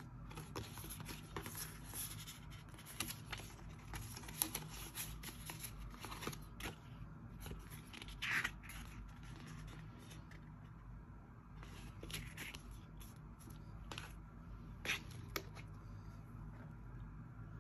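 Hands handling product packaging: scattered clicks and taps with a few short sliding scrapes of cardboard and plastic, as from opening boxes and peeling wrapping.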